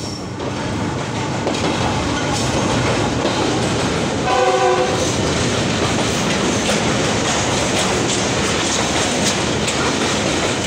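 Parcel train hauled by a diesel locomotive running through close by at speed, its wagon wheels clattering over the rail joints. The locomotive's horn gives one short blast about four seconds in.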